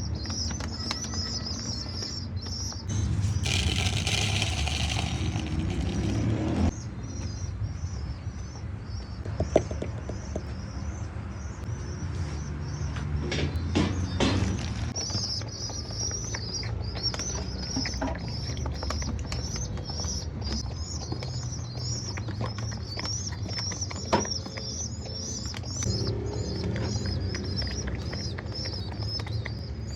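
Pigeons flapping their wings, with a louder burst of wing noise about three seconds in that lasts a few seconds, over rapid high bird chirping and a low background rumble.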